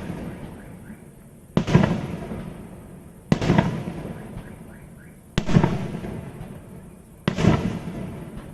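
Fireworks exploding outdoors: four loud bangs about two seconds apart, each followed by a rumbling echo that dies away.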